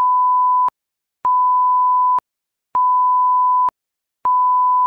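Electronic beep tone of one steady pitch, repeating four times: each beep lasts nearly a second, with a pause of about half a second between them, and starts and stops with a sharp click.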